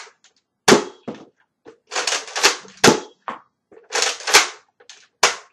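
Nerf Retaliator dart blaster firing three sharp shots about two seconds apart, each shot coming after a short rattle of handling the blaster.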